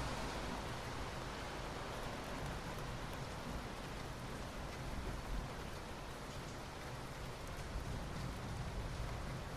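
Steady soft rain falling on asphalt: an even hiss of many drops with fine, scattered patters.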